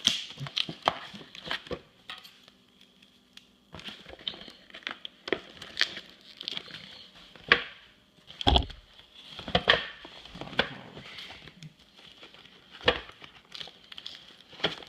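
A tape-covered mailing envelope being worked open by hand: irregular crinkling and tearing of paper, plastic and tape, with sharp crackles and bumps, and a quieter pause about two seconds in.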